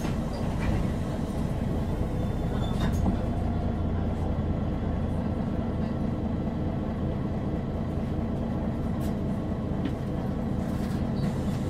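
MAN NG313 articulated city bus, its 310 hp diesel running in a steady drone, with a few clicks and knocks through it.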